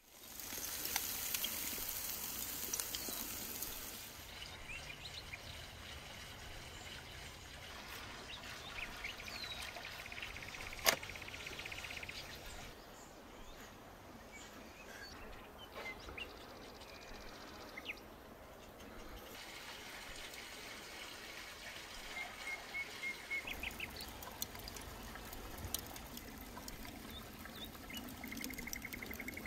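Outdoor ambience with birds chirping, and scattered light taps and clicks of meat and utensils being handled; one sharp click about eleven seconds in.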